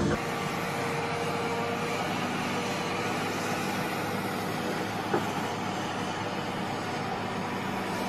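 Steady running hum of heavy railway track-laying machinery, with one short click about five seconds in.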